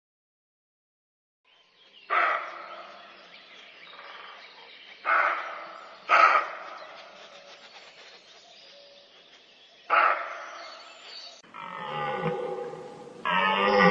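Deer calls: after a brief silence, four loud, harsh calls a few seconds apart, each dying away. Near the end come lower, longer calls with a clear pitch.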